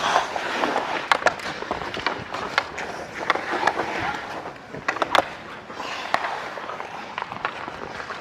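Ice hockey skate blades scraping and carving on the ice in swelling strides, with scattered sharp knocks through it.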